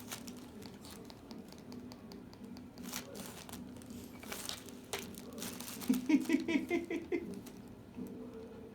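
Crinkling and crumpling of something crinkly being handled, with scattered sharp clicks and a faint steady hum underneath. About six seconds in comes a brief, loud run of rapid pulsed vocal sound.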